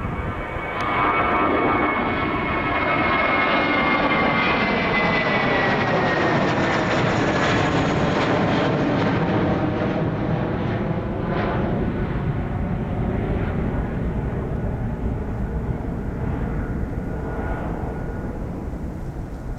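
Airliner's engines as the plane passes close by: a loud engine noise with a whine that slowly drops in pitch as the aircraft goes past, then fades away.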